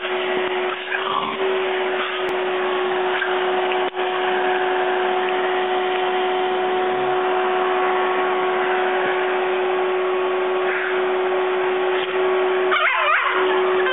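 Vacuum cleaner running steadily with a constant whine. A dog gives a few short, high-pitched cries near the end.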